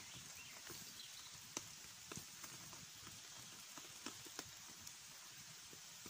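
Faint wood campfire crackling, with irregular sharp pops over a steady hiss; the loudest pop comes about one and a half seconds in.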